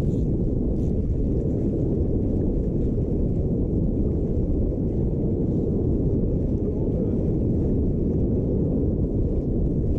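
Steady low rumble of wind and boat noise on the microphone of a slow-moving trolling boat.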